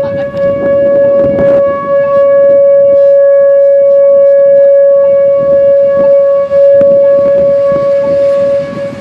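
Outdoor civil defense siren sounding a tornado warning, holding one steady, unwavering tone, loud, with a rough low rumble of noise beneath it.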